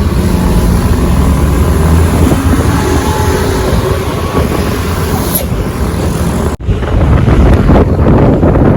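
Wind buffeting the microphone over the rumble of a moving vehicle on the road. The sound breaks off abruptly about six and a half seconds in and picks up again straight away.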